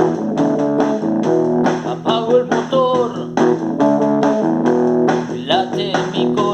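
Instrumental rock music: electric guitar chords and bass over a steady beat, with a lead line bending notes up and down twice.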